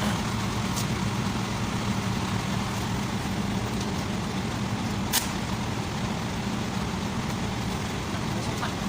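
An engine running steadily with a low, even hum, and one sharp click about five seconds in.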